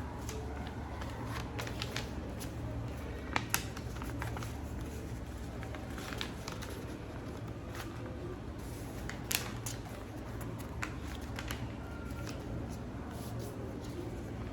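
A sheet of A4 paper being folded and creased by hand: soft rustling with scattered crackles, sharpest as two close together about three and a half seconds in and another about nine seconds in, over a steady low hum.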